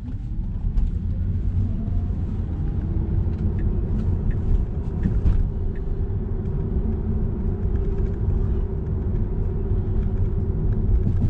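Tesla driving on a city street, heard inside the cabin: steady low road and tyre rumble, with a faint whine that rises in pitch over the first two seconds and then holds steady.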